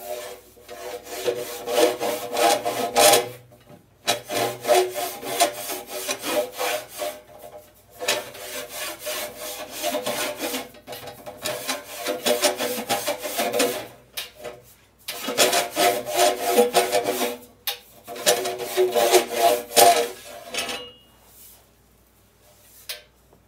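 Long-handled rasp scraping the inside of a metal organ pipe as the pipe is pushed back and forth over it, filing off solder drips. The rasping comes in about six runs of quick strokes with short pauses between them and a pitched ring under the scraping, and dies away near the end.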